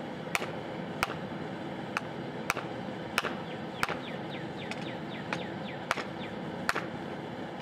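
Hammer blows on a railroad-spike stake anvil, about ten sharp, evenly spaced strikes at roughly one and a half a second, over a steady background hiss.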